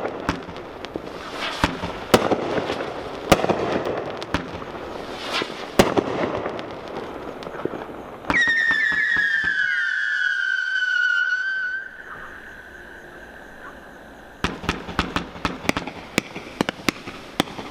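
Miracle Fireworks 'Red, White & Boom' 40-shot cake firing. Shots launch and burst with crackle for about eight seconds, then a cluster of whistles sounds together, falling slightly in pitch, for about three and a half seconds. Near the end comes a fast run of crackling pops.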